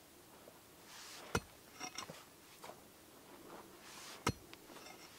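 Pickaxe striking hard, dry dirt twice, about three seconds apart, each blow a sharp impact followed by a few small clicks.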